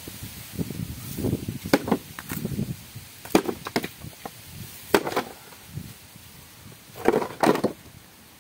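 Pickaxe striking an old bathtub to break it up: a string of sharp cracking blows, several in quick pairs, with crunching and scraping of the broken pieces between strikes.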